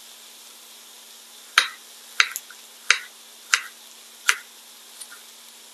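Knife dicing apple on a cutting board: about five sharp chops, roughly two-thirds of a second apart.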